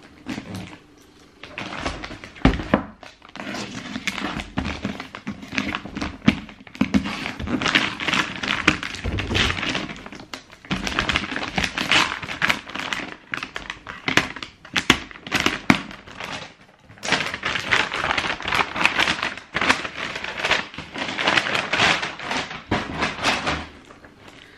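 Packaging rustling and crinkling in a steady crackle, with occasional knocks of a cardboard shoebox being handled and one sharper knock about two seconds in.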